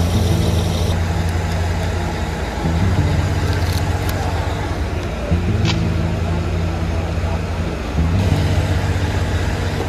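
Background music: a low, steady bass chord pattern that shifts every couple of seconds, with a sharp click about every five seconds.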